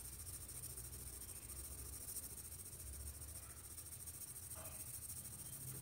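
Faint scratching of a Doms graphite pencil shading back and forth on paper with light, even pressure.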